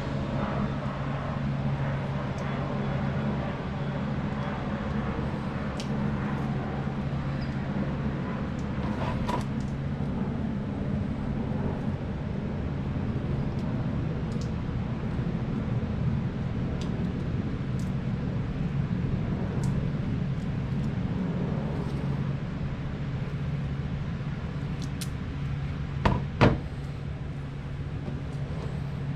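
Steady low hum in the background with light, scattered clicks of hand work on wires, and two sharp clicks near the end, typical of crimping butt connectors or snipping wire.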